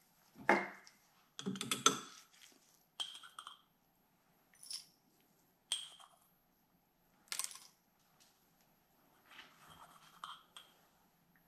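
Barium hydroxide powder being spooned into a small glass beaker: a run of separate light clinks and scrapes against the glass, several with a short high ring. The loudest two come in the first two seconds, and the rest are spaced a second or so apart.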